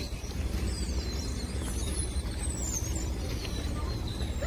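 Outdoor ambience on a handheld phone microphone: a steady low rumble of wind and traffic, with faint high chirps of birds.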